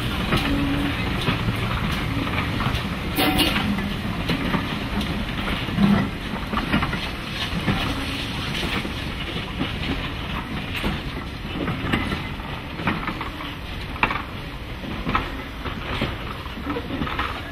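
Steam train pulling out of the station, its coaches' wheels clicking over the rail joints as it draws away, with steam from the locomotive.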